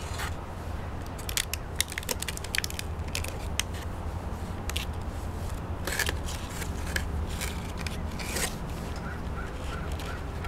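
Thin PET plastic of a cut-down one-gallon water jug crinkling and clicking as it is handled and flexed, in scattered sharp crackles over a steady low rumble.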